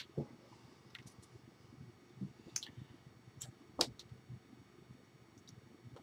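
Faint scattered clicks and soft taps, about half a dozen, from hands meeting and moving while signing in American Sign Language; the loudest comes near four seconds in.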